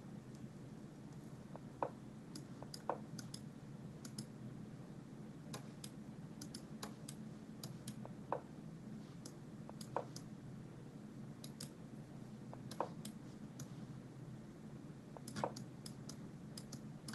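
Faint, irregular computer mouse clicks while playing online chess, with a few louder short knocks mixed in, over a low steady hum.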